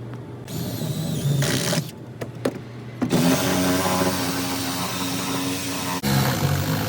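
A power saw cutting the boat's floor into sections during a soft-floor repair, its motor running steadily under load, in several short clips joined by abrupt cuts.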